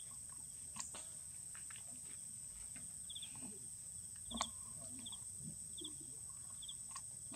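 Insects in the background: short chirps about once a second over a steady high-pitched whine, with a few faint clicks and one sharper tap a little past the middle.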